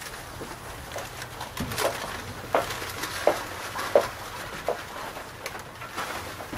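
Footsteps across a stage, about five evenly paced steps, over a low rustle of audience noise.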